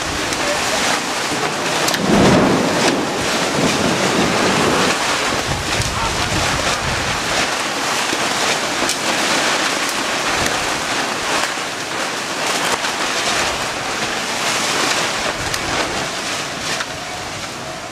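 Storm wind and heavy rain: a dense, steady rush of rain with gusts buffeting the microphone, and a louder swell about two seconds in.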